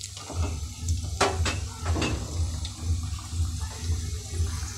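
Batter-coated chicken pieces deep-frying in a pan of hot oil, the oil bubbling and sizzling steadily, with a few short clicks as more pieces go in and a low hum underneath.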